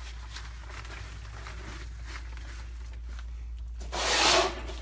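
Faint scattered clicks of handling over a steady low hum, then a loud, harsh scraping rustle lasting well under a second near the end.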